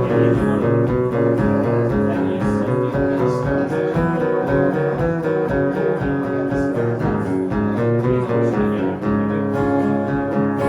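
Instrumental music led by acoustic guitar, strummed and picked without singing.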